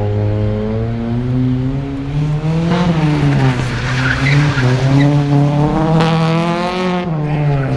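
Car engine revving up and down as the car is driven hard through tight turns, with tyres squealing from about three seconds in until near the end.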